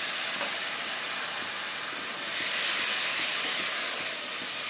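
Pointed gourd and spice paste sizzling in hot oil in a kadai as a little water is added to it. The hiss swells about two seconds in, then eases while a wooden spatula stirs the pan.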